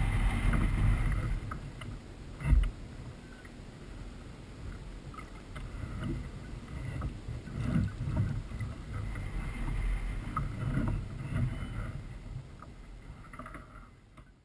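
Water splashing and sloshing as a landing net is worked in and out of the water beside a kayak to release a grey mullet, in uneven bursts that fade near the end. A sharp knock about two and a half seconds in.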